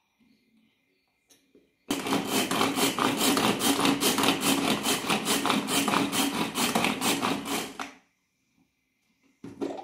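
Hand-pulled string food chopper whirring as its blades spin through passion fruit pulp. It is pulled over and over in quick succession for about six seconds, starting about two seconds in and stopping suddenly.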